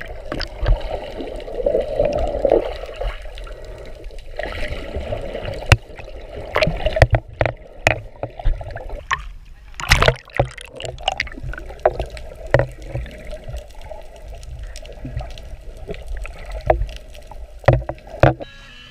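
Muffled underwater sound picked up by a camera in a waterproof housing: a steady low rumble of moving water and bubbles, with many scattered sharp clicks and knocks.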